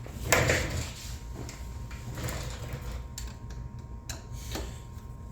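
A tool drawer sliding and tools rattling, then a run of separate light clicks and knocks as a screwdriver is picked out and handled.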